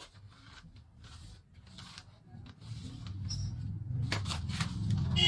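Paper and plastic sheets rustling and scraping on a workbench as they are handled, with a few sharp clicks about four seconds in. A low rumble builds up steadily through the second half.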